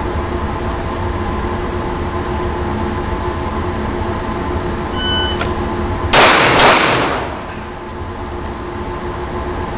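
A shot-timer beeps, and about a second later a pistol fires two shots roughly half a second apart, each echoing off the indoor range. Under it runs a steady ventilation hum.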